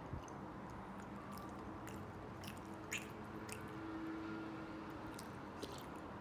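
Quiet chewing of a soft, chewy glutinous rice ball, with a few faint mouth clicks and smacks scattered through it, the sharpest about three seconds in.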